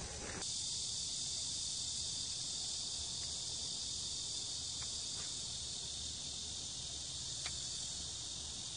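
Steady chorus of insects, an even high-pitched buzz that does not change, with a few faint ticks.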